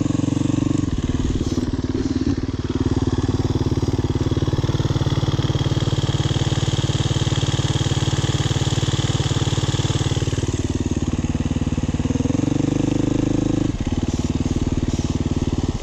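Enduro motorcycle engine running steadily. Its pitch changes between about eleven and thirteen seconds in, and the sound cuts off abruptly at the end.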